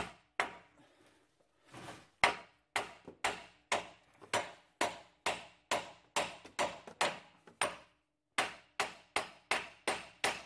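Hammer blows about three a second, each ringing briefly, with a short pause about eight seconds in. They are knocking the outer tie rod end's stud loose from the steering knuckle of a 2005 Silverado 1500.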